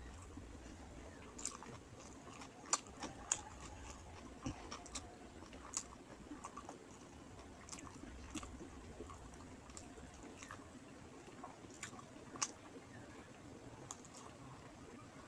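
Close-up mouth sounds of someone eating rice with fish curry: chewing, with irregular soft clicks and smacks.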